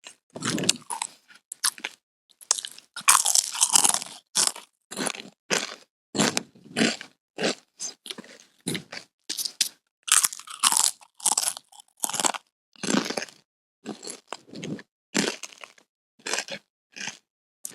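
Close-up crunching of someone chewing potato chips, a steady run of short crisp crunches about one to two a second with brief silences between them.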